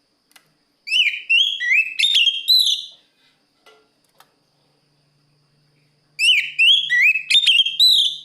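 Oriental magpie-robin (kacer) singing in full voice, the song used to call out a rival: two phrases of rising whistled notes, each about two seconds long, a few seconds apart.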